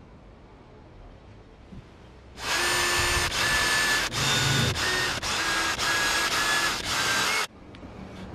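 Electric drill boring small holes into a wooden board: starting about two and a half seconds in, the motor runs in a string of short, whining bursts with brief pauses between them, then stops abruptly near the end.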